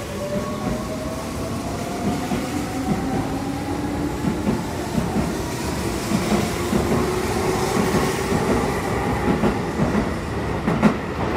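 Keihan electric commuter train pulling out of the station: the motor whine rises in pitch as it gathers speed while the wheels clack over the rail joints, quicker and quicker. A few sharp clacks near the end as the last car goes by.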